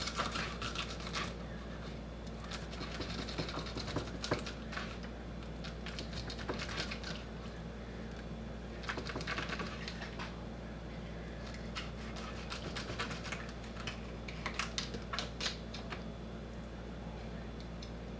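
Fillet knife cutting and scraping along a fish, in clusters of short scratchy, crackling strokes as it slices the flesh away from the bones.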